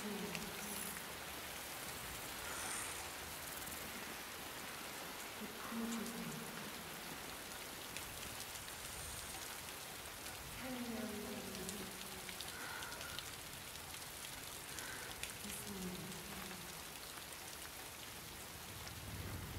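Steady downpour of rain falling and splashing. About every five seconds a soft low sound falls in pitch for about a second.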